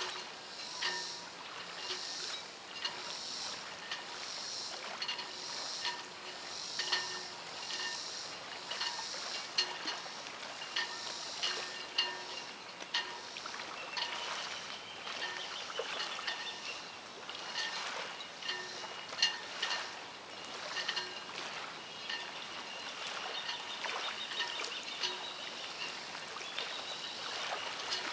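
Waterfront outdoor ambience: light clicks and high chirps repeating about once a second, with a few longer chirping calls near the middle and toward the end.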